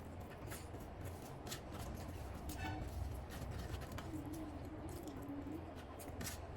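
Close-miked eating sounds of chicken biryani with egg: scattered wet mouth smacks and small clicks of chewing, over a steady low hum.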